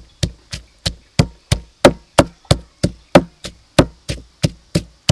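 Wooden pestle pounding garlic and red chilies in a wooden mortar, a steady rhythm of dull knocks about three a second.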